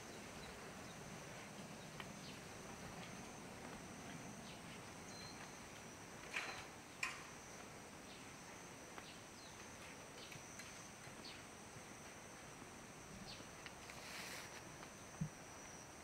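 Quiet outdoor ambience with insects keeping up a steady high-pitched trill. A few short clicks break through, the loudest about six and seven seconds in, with a brief hiss and a low knock near the end.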